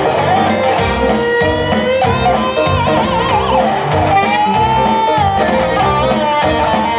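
Live instrumental music: electric guitar and saxophone playing together over a steady low beat. A held melody note wavers with vibrato about three seconds in.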